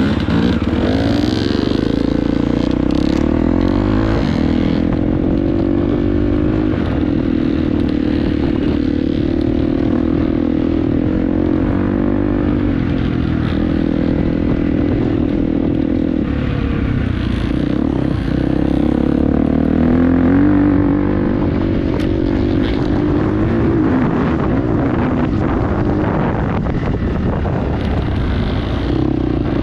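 Dirt bike engine running under way, its pitch rising and falling as the throttle is worked.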